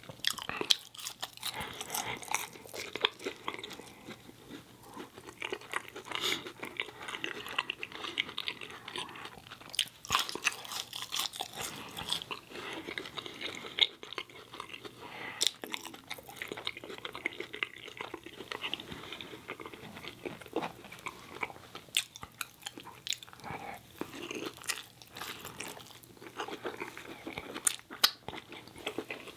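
Close-miked chewing of French fries dipped in ketchup, with many sharp, irregular mouth clicks and smacks.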